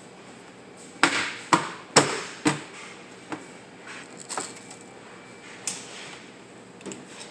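Sharp knocks and snaps as an appliance's side case panel is pressed into place by hand: four loud ones about half a second apart, then a few fainter clicks.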